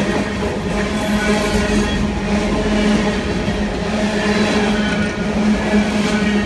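Empty coal hopper cars of a departing freight train rolling past on the track, a steady rumble of wheels and cars with a constant low hum running through it.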